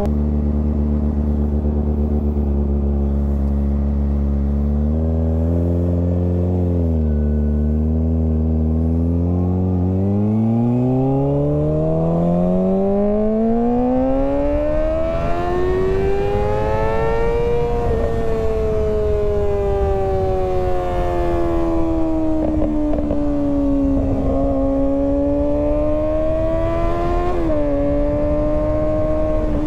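Sport motorcycle engine under way at speed. The revs hold steady, then climb smoothly for several seconds as the bike accelerates, ease off gradually, and rise again, all over a steady rush of wind.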